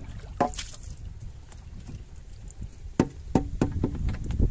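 A bamboo tube fish trap knocked against the boat's rim as it is tipped and shaken to empty out the catch, with water splashing and dripping into the boat. One knock comes about half a second in, then a quick run of four or five sharp knocks near the end.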